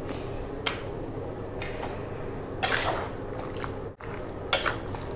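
Sweet soy sauce poured into a wok of simmering goat tongseng and stirred in with a metal spatula, heard as several short wet, splashing bursts.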